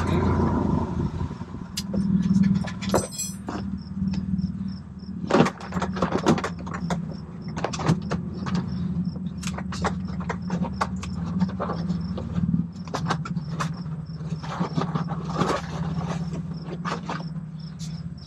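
Scattered clicks, knocks and rustles of gear being handled in a light aircraft's cabin, over a steady low hum.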